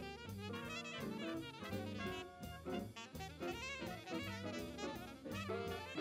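Jazz music: a saxophone and brass melody over a drum kit keeping a fast, steady beat.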